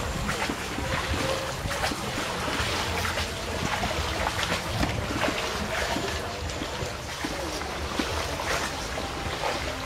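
Paddles dipping and splashing in canal water as a small boat is rowed along, with water trickling off the blades between strokes.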